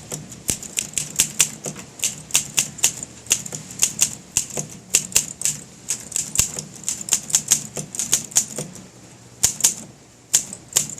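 A 1959 Olympia SM3 manual typewriter being typed on: a quick, uneven run of sharp type-bar strikes, several a second, with a short pause a little before the end.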